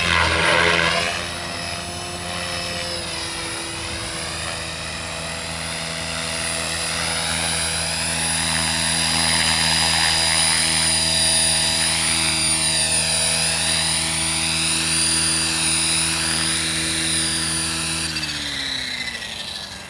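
Gaui X5 electric RC helicopter running: the buzz of the main rotor with a high electric-motor whine, its pitch wavering up and down as the helicopter moves. Near the end the pitch falls and it grows quieter as the rotor winds down.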